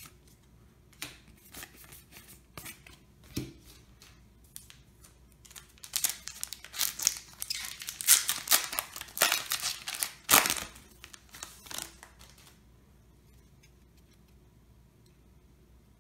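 A foil Yu-Gi-Oh! booster pack wrapper being torn open and crinkled by hand, a dense crackling run from about six to twelve seconds in. Before it come a few scattered light clicks from handling the cards.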